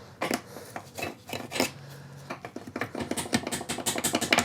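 Hammer tapping and a tool scraping at the bolted end cover of a 5-speed manual gearbox to break the cover's sealant so it can be popped off: irregular metallic knocks and clinks, coming faster near the end.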